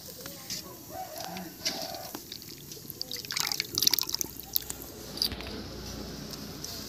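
Water dripping and splashing as wet spinach leaves are lifted from a bowl of washing water and dropped into a pan of simmering dal, with a cluster of sharp drips and splashes about three to five seconds in. A hen clucks briefly in the background near the start.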